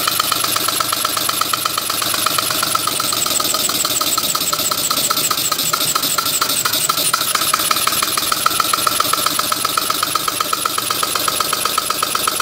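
Model three-cylinder radial engine running on compressed air, turned down to a slow run: a rapid, even train of exhaust puffs and mechanical clicks at a steady level. The builder is unsure whether its timing needs adjusting.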